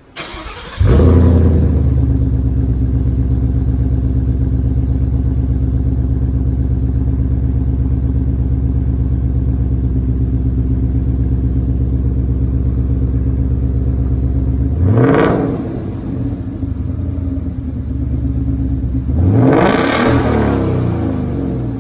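2016 Ford Mustang GT's 5.0 V8 with SLP Loudmouth II axle-back exhausts starting up, then idling steadily. It is blipped twice, rising and falling quickly: once about 15 seconds in, and again, longer, near the end.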